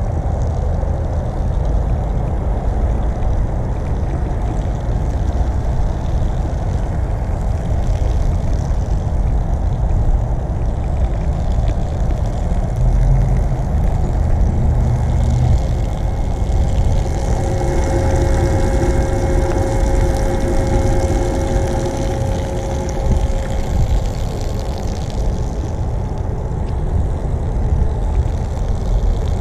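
Steady low rumble of wind on the microphone while the DIY camping shower runs, its 12 V bilge pump spraying water from a water-balloon filling adapter onto grass. About halfway through, a droning hum with several steady pitches swells and then fades over about eight seconds.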